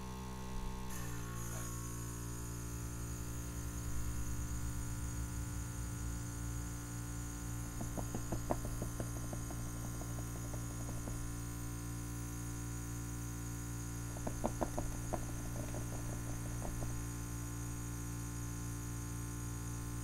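Small electric airbrush compressor running with a steady drone while water is blasted through the airbrush into its cleaning pot; the drone's pitch drops slightly about a second in. Faint clicks of handling come in two short clusters midway and later.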